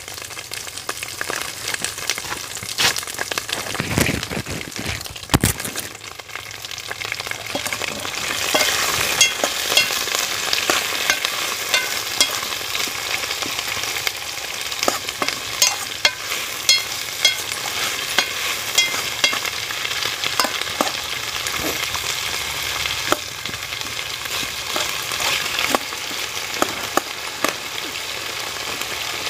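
Sliced vegetables sizzling as they fry in a pan, with a spoon scraping and clinking against the pan as they are stirred. The sizzle grows louder about eight seconds in.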